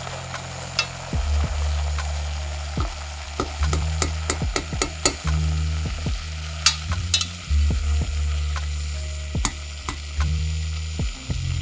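A wooden spoon stirring glutinous barley in a stainless steel pot of simmering water, with the grains and water bubbling and sizzling and the spoon scraping and clicking against the pot again and again.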